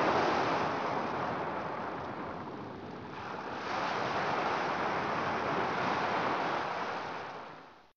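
Ocean surf washing in, a steady rushing hiss that swells twice and fades out near the end.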